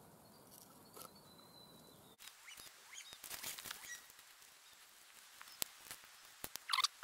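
Faint scraping, rustling and small clicks as a knife works at a deer carcass on dry leaf litter, ending in a short run of louder rasping scrapes.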